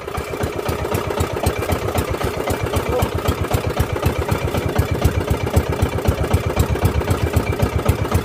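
Small engine of a motorized outrigger boat running steadily, with a fast, even low beat.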